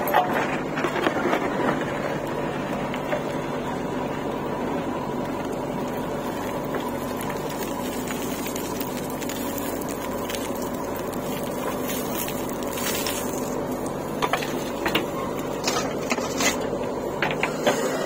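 JCB 3DX backhoe loader's diesel engine running steadily under load as the backhoe digs and lifts a bucket of earth. A few sharp knocks come near the end.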